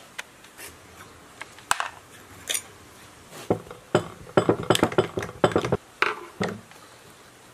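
Metal clinks, knocks and scrapes of a steel screwdriver working on an old lathe's cast-iron gear housing and its ball-handled lever. A few scattered knocks come first, then a dense run of clanks in the middle seconds.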